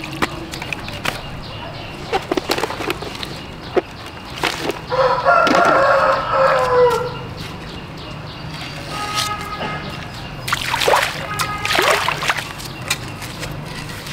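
A rooster crows once, loudly, for about two seconds starting about five seconds in, the call ending on a falling note; fainter calls follow near nine and eleven seconds in, among scattered clicks and knocks.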